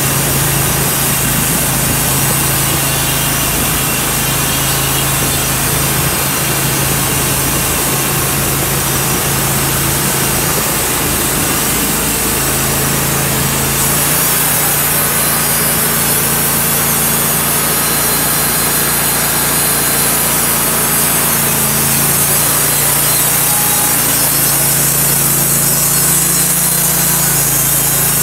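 Portable band sawmill running: the gas engine on the saw head hums steadily while the band blade saws through a walnut log. The engine note shifts about halfway through and then holds steady.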